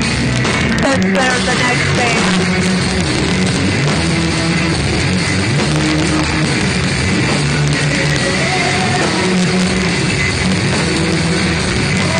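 A rock band playing live: electric guitar and drums at steady full volume, heard from within the crowd.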